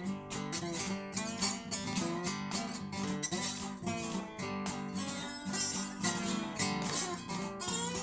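Blues band playing an instrumental passage between sung lines, led by a strummed guitar over a steady rhythm.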